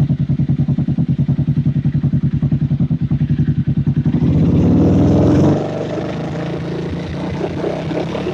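Engine running with a misfire, its note pulsing evenly at about seven to eight beats a second. About four seconds in it rises briefly and steadies, then drops back to a lower, rougher sound a second and a half later.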